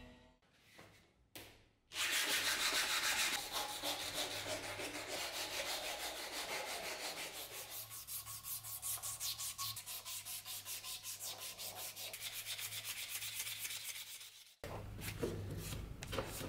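Strip of abrasive sanding cloth pulled back and forth around a wooden knife handle clamped in a vise, shoeshine-style. The rasping strokes repeat evenly, a few a second. It starts about two seconds in and cuts off sharply near the end.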